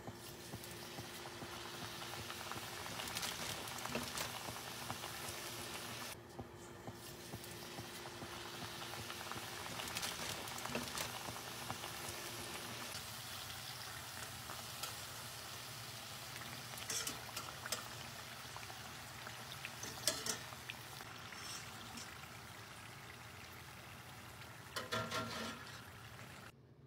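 Samosas deep-frying in hot oil in a stainless-steel pan: a steady sizzle with fine crackling, broken by a few sharp clicks of a metal fork against the pan in the second half.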